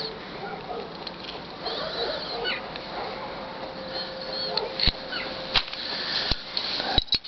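Small birds chirping over a steady background hiss, with a few sharp clicks in the second half, roughly 0.7 s apart.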